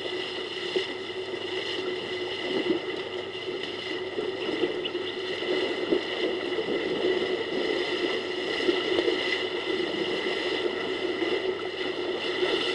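African elephants wading and splashing through a shallow waterhole: irregular water splashes and sloshing over a steady background hum.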